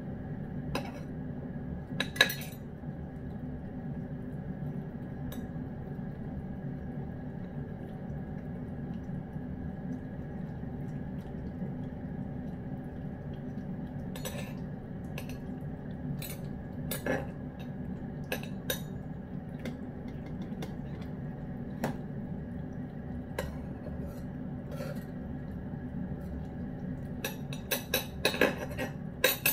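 Metal knife and spoon tapping and scraping against a ceramic bowl in scattered clinks, with a quick cluster of clinks near the end, over a steady low hum.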